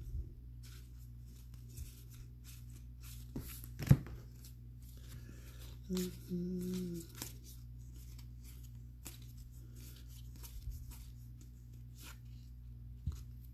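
Sports trading cards handled and sorted by hand on a table: scattered light clicks and rustles, with a sharper tap about four seconds in, over a steady low hum.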